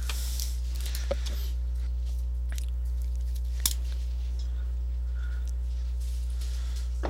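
Steady low electrical hum on the recording, with a few sharp isolated clicks, the clearest about a second in and just before the middle.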